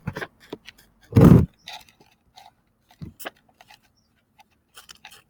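Handling sounds: one short, deep thump about a second in, then scattered faint light clicks and taps.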